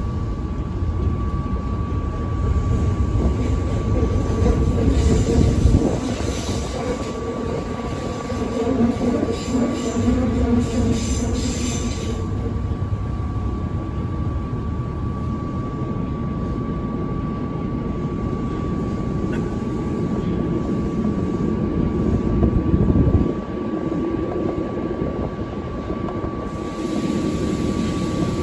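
Tokyo Metro 02 series subway train running between stations, heard from inside the car: a steady rumble of wheels and running gear with a constant high whine. A high squeal rises over it for several seconds from about 5 s in.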